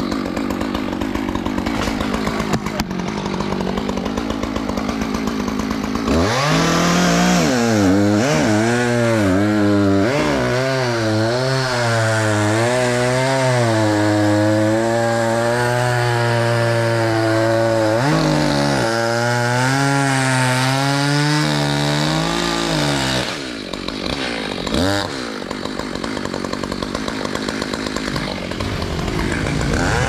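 Chainsaw running close by, its engine pitch swinging up and down as it cuts from about six seconds in, easing off briefly near the three-quarter mark before running on steadily.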